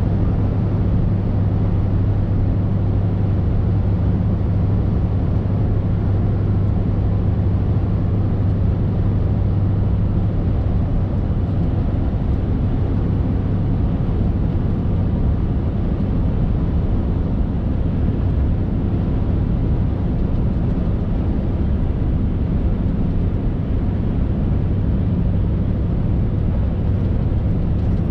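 Scania R580's 16-litre V8 diesel engine running steadily under way, heard from inside the truck's cab as a constant low hum over road noise.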